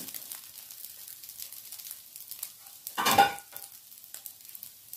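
Beef fried rice sizzling quietly in a frying pan with a light, steady crackle. About three seconds in there is one brief, louder sound of the wooden spatula against the pan.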